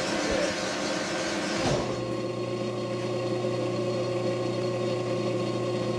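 Manual metal lathe running with a steady hum and whine. A louder hiss over it cuts off abruptly about two seconds in, leaving only the machine's steady tones.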